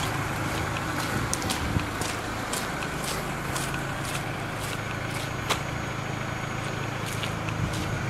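Steady low hum of an idling engine, with irregular footsteps scuffing on concrete.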